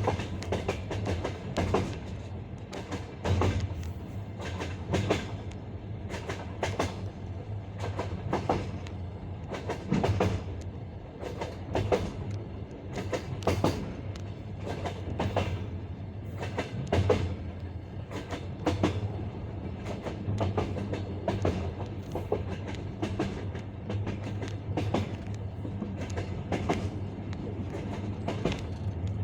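Passenger-train wheels clattering over the joints of jointed (bolted) rail track: the classic clickety-clack, with the loudest knocks every one and a half to two seconds over a steady low rumble of the moving train.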